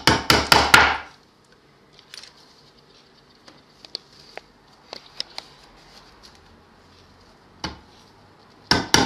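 Upholstery tacks being hammered into a wooden stool frame through a fabric lining: a quick run of about half a dozen taps at the start, a single tap near the end, then another quick run of taps. Faint clicks of handling come in between. The tacks are set a few inches apart at opposite sides to pull the cover taut before it is turned in.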